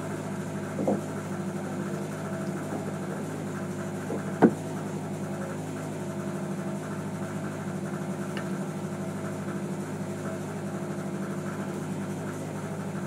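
Fishing boat's engine running with a steady, even hum, and one sharp knock about four and a half seconds in.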